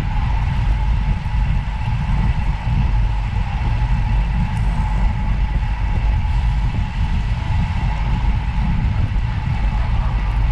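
Steady rumble of a vehicle on the move, with a faint steady whine running through it.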